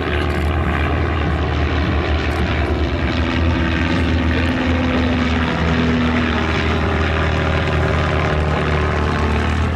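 A formation of propeller-driven light aircraft flying past, their piston engines running steadily together with several overlapping tones whose pitch drifts slowly lower.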